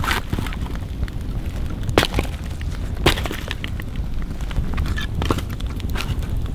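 Split firewood knocking and cracking as the logs are shoved with a boot and shifted onto a burning campfire. A handful of sharp cracks come a second or so apart over a steady low rumble.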